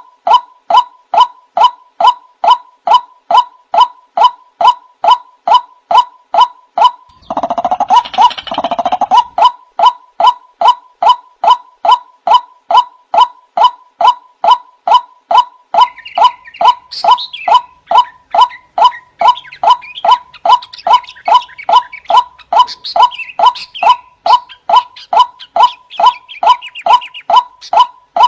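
Male white-breasted waterhen calling: a steady, even series of short 'wak' notes, about two a second. About seven seconds in, a louder, rougher burst of calling lasts a couple of seconds, and fainter, higher chattering runs under the notes in the second half.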